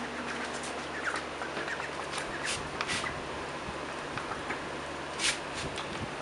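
Domestic duck pecking and dabbling at food in a plastic bowl: scattered sharp clicks and taps of the bill against the bowl, the loudest about five seconds in, over a steady hiss.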